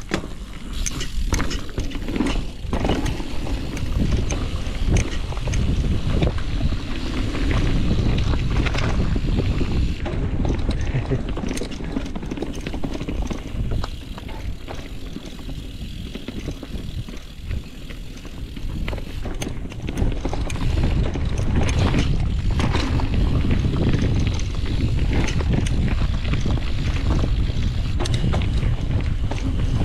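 Mountain bike riding fast down a dirt trail, heard from the rider's camera: wind rushing over the microphone, tyres rolling, and frequent knocks and rattles from the bike over bumps. It eases off for a few seconds about halfway through, then picks up again.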